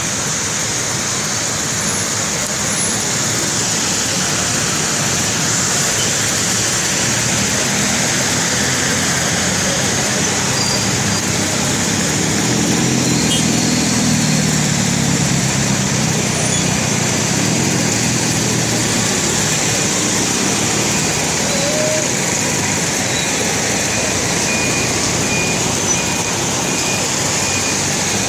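Heavy rain pouring onto a flooded street while motorcycles and cars drive through the standing water. A vehicle's engine swells louder about halfway through and then fades.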